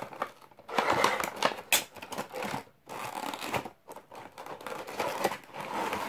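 A cardboard toy box and its clear plastic insert tray being handled as the figure is slid out: irregular rustling, scraping and clicking in bursts, with short pauses between them.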